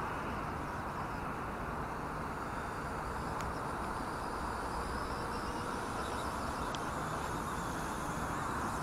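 WLtoys V950 200-size RC helicopter in flight: a steady whir from its rotor and electric motor, mixed with wind rushing on the microphone.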